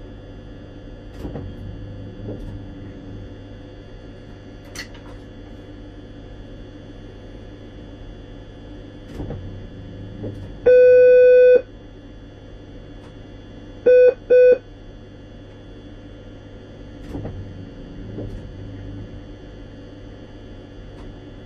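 Electronic beeper in the driver's cab of a Regio 2n (Z 57000) electric train: one long beep about eleven seconds in, then two short beeps about three seconds later. Under it runs the steady hum of the train with a few soft knocks.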